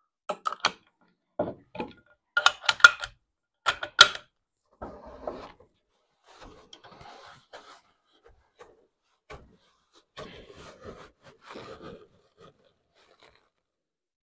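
Sharp metallic clicks of rifle cartridges being pressed into a detachable box magazine and the rifle being readied, several clicks in quick succession during the first four seconds, followed by softer rustling as the rifle is handled and settled.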